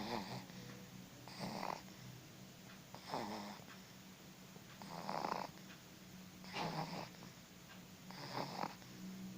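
A small child snoring in sleep: a regular run of about six snores, one every one and a half to two seconds.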